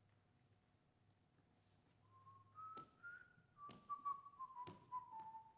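Faint whistled tune: single pure notes that start about two seconds in, step upward, then drift down in pitch, with a few soft knocks about a second apart.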